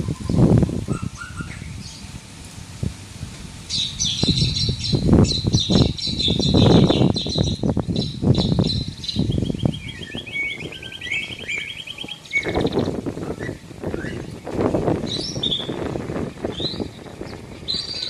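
Small caged parrots, a lovebird and a serindit (blue-crowned hanging parrot), chirping in rapid high trills, with a buzzier chattering run in the middle and short chirps near the end. Loud low rumbling noise comes and goes underneath.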